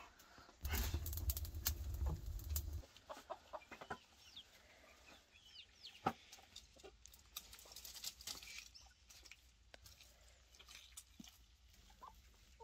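Chickens clucking, with sharp knocks of split firewood being pulled from a stacked woodpile. A low rumble, the loudest sound here, runs for about two seconds near the start.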